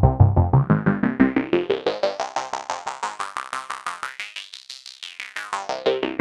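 Arturia MatrixBrute analog synthesizer playing a fast repeating note sequence, about seven notes a second, through a Mannequins Three Sisters Eurorack filter. The filter sweeps upward, stripping away the bass and brightening the notes until they turn thin and quiet about four to five seconds in. It then sweeps back down as the low end returns near the end.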